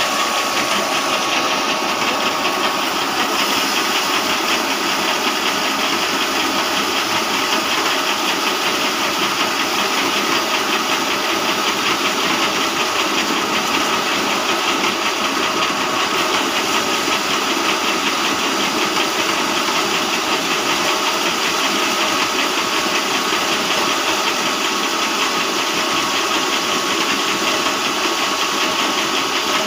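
Two-in-1 chaff cutter and cattle feed grinder running steadily while its grinder mills feed into powder: a dense, even mechanical noise with a thin steady whine.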